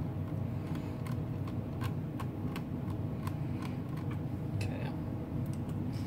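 Small, irregular clicks of a screwdriver working the bottom-panel screws out of a laptop, about one or two a second, over a steady low hum.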